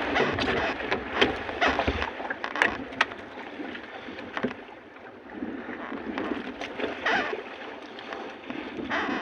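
Splashing water and wind noise on the microphone, with many scattered clicks and knocks. The low rumble is heavier in the first two seconds.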